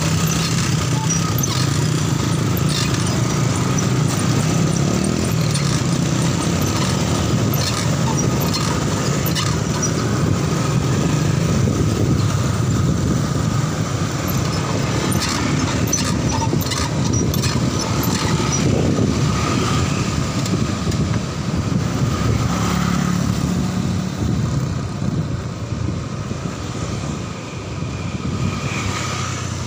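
Motorcycle and scooter traffic running close by, a steady engine hum heard from a bicycle riding along the street, with scattered sharp clicks. The traffic noise eases off a little near the end.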